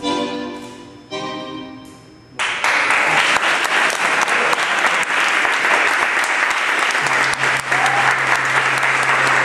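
A tango piece ends on two last chords that fade away. About two and a half seconds in, audience applause breaks out suddenly and carries on steadily.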